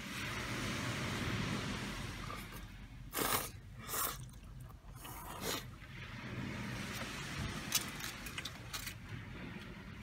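Sea waves washing on the shore, swelling over the first couple of seconds, with three short, sharp noises from eating ramen at the bowl about three, four and five and a half seconds in, and a few light clicks later.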